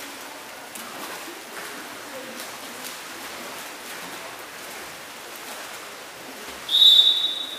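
Water splashing and the general wash of an indoor pool hall, then, near the end, one loud, high referee's whistle blast lasting under a second.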